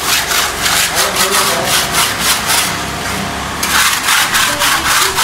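Quick back-and-forth rubbing or scraping strokes of a hand tool, about four a second, easing briefly about three seconds in.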